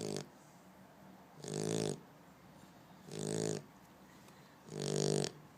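Shar-pei snoring: a buzzy snore about every second and a half, each lasting about half a second, three full snores after the tail of one at the start.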